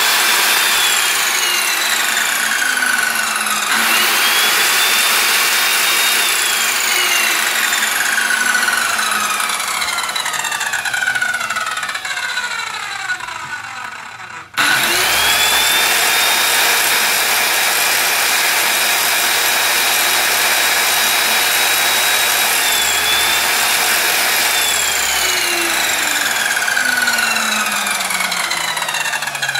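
Cat Power 1200 corded circular saw running unloaded with a steady high whine, test-run after a repair of its motor's brush cover. About halfway through the sound stops abruptly, then the saw starts again and its whine rises back to full speed.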